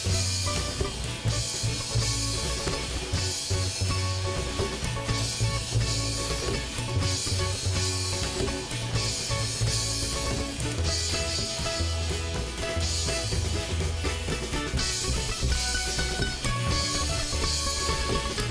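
Live rock band playing an instrumental break with a steady beat on drum kit and cymbals, with bass and guitar, between sung verses.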